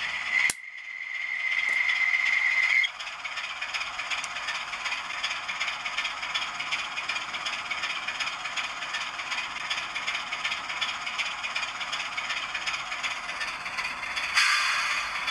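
DCC sound decoder in an OO-gauge Class 25 diesel model playing its engine sound through a small, tinny speaker. A click about half a second in is followed by a single steady high note held for about two seconds, and the sound gets louder and brighter near the end.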